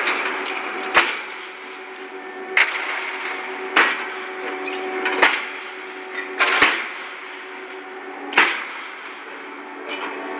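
Sharp metallic clanks, about seven spread out with two close together near the middle, as the hooked clamps of a crane's lifting beam knock against steel rails stacked in a ship's hold, over a steady machinery hum.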